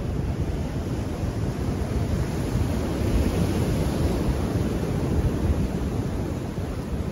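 Sea waves breaking and washing against the concrete tetrapods of a breakwater, with wind buffeting the microphone. A wave surges more loudly about three seconds in.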